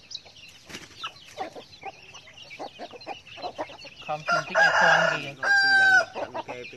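Chicks peeping and hens clucking softly while they forage. About four seconds in, a rooster crows loudly, ending on a long held note that falls away.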